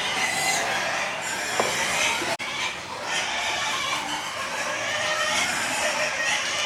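Farm animals calling in a dense, continuous din of overlapping cries, broken by a momentary gap about two and a half seconds in.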